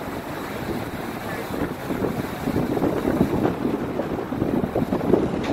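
Wind buffeting the microphone over the low rumble of a boat moving along the river, growing louder and more gusty about two seconds in.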